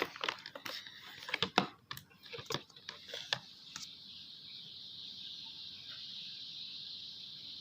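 Thick, sticky slime being stirred in a container, with irregular clicking and tapping strokes through the first few seconds. A steady high hiss takes over for the second half.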